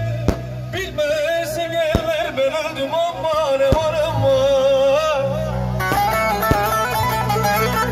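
Live music over a sound system: a lead melody that wavers and bends in pitch, cut by a few sharp bangs. About six seconds in, a fuller beat with bass comes in.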